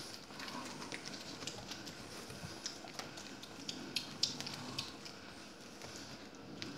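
Young puppies scrambling about on a cloth surface: irregular light scratches and ticks of small claws and paws.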